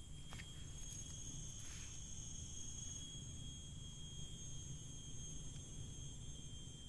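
Steady high-pitched drone of forest insects such as crickets, several pitches sounding at once over a low rumble.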